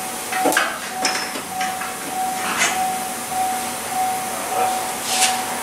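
Tool and metal noises from work under a lifted car: a few short, sharp knocks and hissing rasps at irregular moments.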